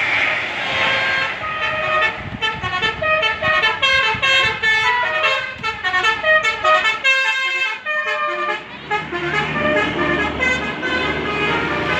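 Indonesian bus 'telolet' horn, a multi-trumpet air horn, playing a quick melody of short notes, about three to four a second, over the hum of the bus's engine.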